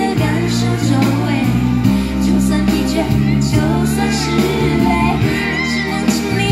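Pop song with a woman singing over held bass notes, played through a pair of JVC SK-41 three-way speakers driven by a Pioneer SA-510 stereo amplifier.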